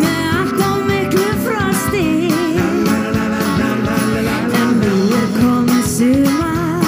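Live pop-rock band performing: a woman sings the lead vocal in Icelandic, with a wavering, held melody, over drums and keyboards with a steady beat.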